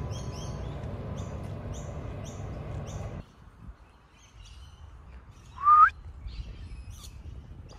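Birds calling outdoors: a run of quick high chirps repeating two or three times a second over a steady background of outdoor noise. After a sudden drop about three seconds in there are scattered faint calls and one loud, short rising call near the end.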